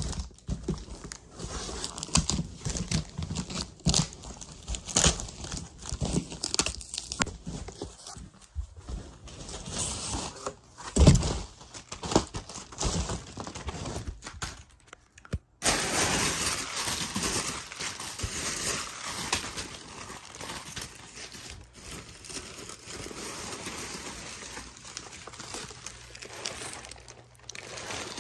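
Packing paper (tissue paper and honeycomb kraft wrap) being handled and pulled from a cardboard box: crinkling and rustling with occasional tearing, and one loud thump about eleven seconds in. The sound cuts out briefly about halfway through, and after that the rustling is denser and steadier.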